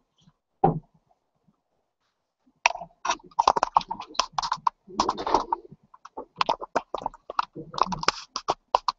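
Indistinct talking, starting about two and a half seconds in after a near-silent pause.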